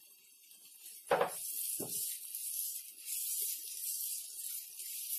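Stir-fry vegetables (onion, carrot and French beans) sizzling in hot oil in a nonstick wok on high heat as they are stirred: a steady hiss that starts about a second in, with two short knocks near its start.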